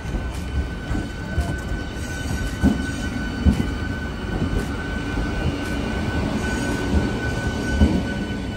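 Electric suburban multiple-unit train running past close by: a steady rumble of wheels on rails with irregular knocks, and a steady high whine throughout.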